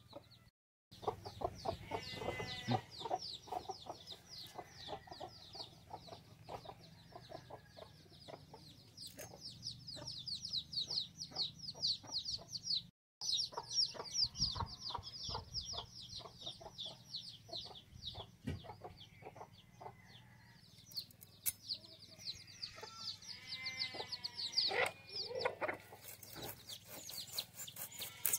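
Domestic hen clucking while her chicks cheep in a continuous stream of short, high, falling peeps. A longer, wavering hen call comes a few seconds before the end.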